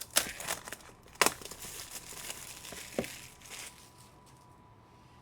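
Plastic card-pack wrapper being crinkled and torn open by hand: a few sharp crackles, then rustling that dies away a little under four seconds in.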